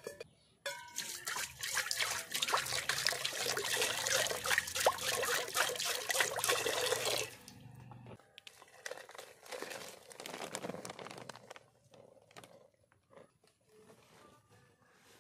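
Water pouring into a stainless steel bowl for about six seconds, then stopping. A few seconds later comes a quieter pour of flour into the water in the bowl.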